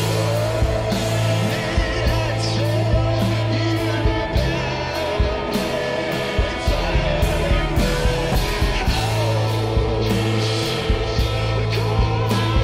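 Psychedelic rock music from a full band: a drum kit keeping a steady beat with regular cymbal hits, under a singing voice.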